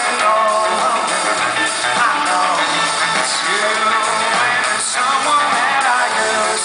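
Rock band playing live on electric guitars and bass, recorded from high in an arena's audience seats.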